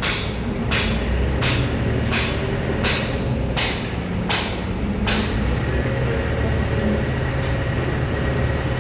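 Heavy diesel machinery running steadily, with a short hissing stroke repeating about every 0.7 seconds that stops about five seconds in.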